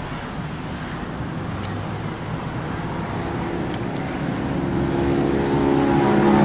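Road traffic going by, with a large vehicle's engine drone growing steadily louder over the second half.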